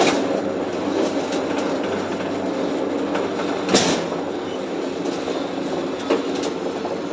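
GW-42 bar bending machine running: its electric motor and gearbox hum steadily, with a sharp metallic clank about four seconds in and a couple of lighter knocks near the end.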